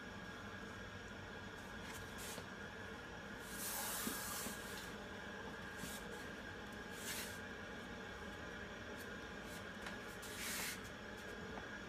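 Palms pressing and rubbing across a glued-on wooden cabinet end panel, making five short brushing hisses, the longest and loudest near the middle, over a faint steady room hum.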